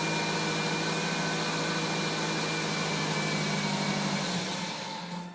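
Steady machine noise, a low hum under a loud even hiss, fading out near the end.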